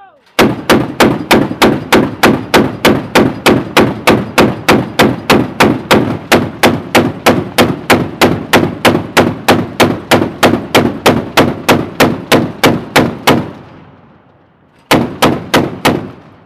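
Mark 38 naval gun mount's 25 mm chain gun firing a long steady string of sharp shots, about three a second, for some thirteen seconds. After a short pause it fires a quick burst of four more.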